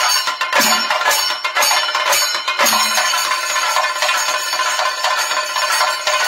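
Thayambaka on chenda drums: several cylindrical Kerala drums struck with sticks in rapid, continuous rolls, with two deeper, heavier strokes about two seconds apart.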